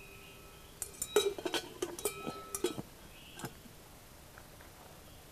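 A quick run of sharp clinks and knocks of hard objects against each other over about two and a half seconds, starting about a second in, with a steady ringing tone underneath.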